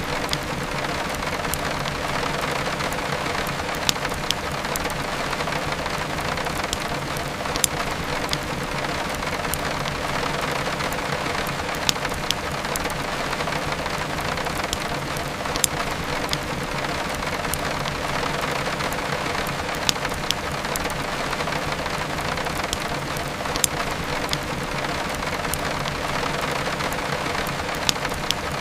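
Steady heavy rain mixed with a crackling wood fire, with sharper pops standing out about every four seconds.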